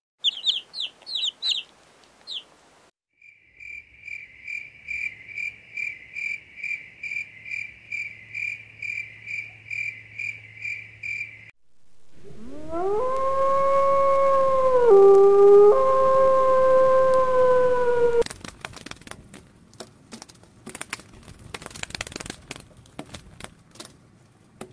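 A wolf howling: one long howl, the loudest sound here, that rises at its start, drops in pitch for a moment partway through, then carries on and cuts off. Before it come a few quick high chirps and a long run of short high-pitched pulsing calls, about two and a half a second; after it, scattered clicks and crackles.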